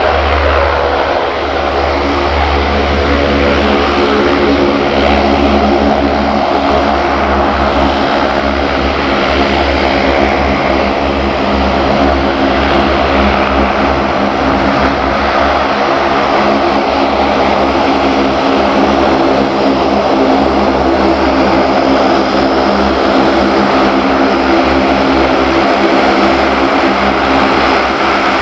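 Saab 340 twin turboprop taxiing, its two General Electric CT7 engines and propellers running steadily at taxi power: a constant propeller drone of several steady tones over engine noise.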